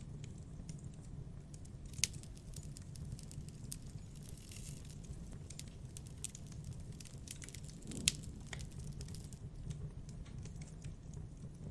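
Campfire crackling: scattered small crackles over a low steady noise, with sharp pops about two seconds in and again about eight seconds in.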